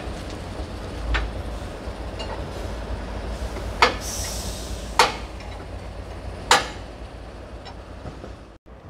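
Heavy-haul multi-axle trailer carrying a train carriage, moving slowly with a steady low rumble. Four sharp metallic clinks come a second or more apart, and all sound cuts out for a moment near the end.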